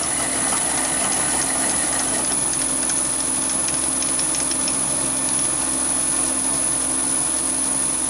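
Chinese mini lathe running steadily while a large HSS twist drill bores into the spinning workpiece, a steady hum with a high whine over it.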